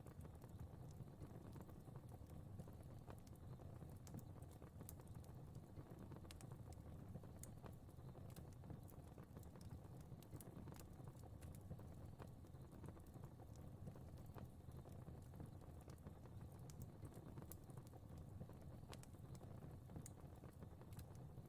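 Fire crackling in a fireplace: a low, steady sound of burning with frequent small, sharp snaps at irregular intervals.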